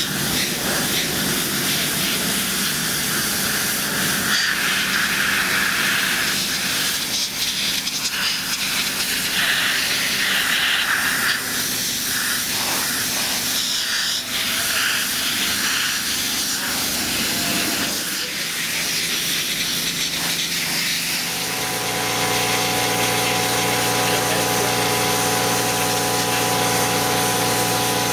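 Hot-water pressure washer jet hissing steadily as it sprays greasy engine and gearbox parts. About two-thirds of the way through, a steady machine hum with a low note joins the hiss.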